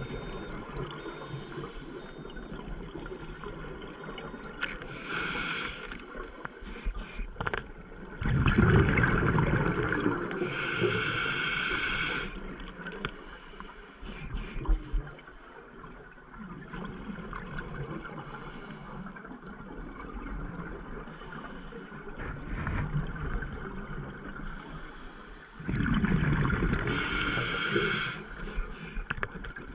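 Scuba diver breathing through a regulator underwater: a steady bubbly background with hissing breaths and two loud rushes of exhaled bubbles, each lasting a few seconds, about a third of the way in and near the end.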